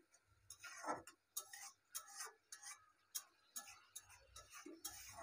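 Spatula scraping and tapping against a wok while stirring beef in a thick masala, in irregular strokes about twice a second.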